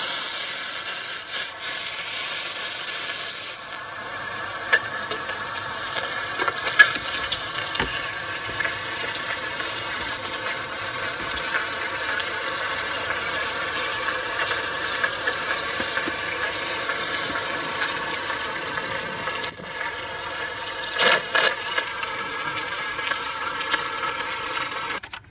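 Steady hiss with a high-pitched whine from a Sony BVW-35 Betacam SP portable video recorder in operation, with a few faint ticks; it cuts off suddenly near the end.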